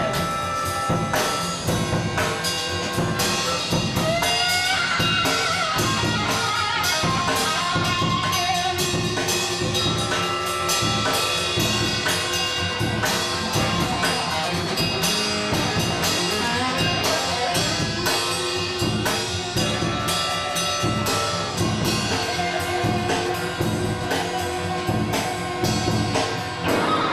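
Live orchestra with strings and drum kit playing a fast passage of film music over a steady, driving drumbeat, with a few sliding notes about four seconds in.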